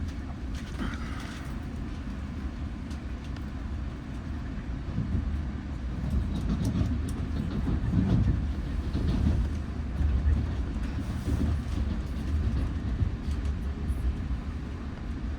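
Passing train: a low rumble that grows louder about five seconds in and stays up, with light clicking over it.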